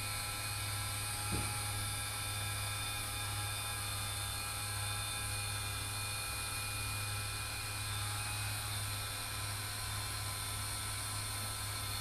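Celestron NexStar telescope mount slewing on its small geared motors: a steady electric whir, with one short click about a second and a half in. The mount is driving toward the second star of its two-star alignment.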